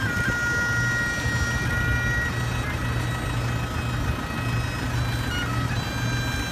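Bagpipes playing a slow tune in long held notes that step from one pitch to the next, over a steady low rumble.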